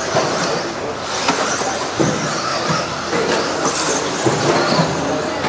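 Several radio-controlled stadium trucks racing on a dirt track: a steady din of motors and tyres, with scattered sharp clacks and knocks.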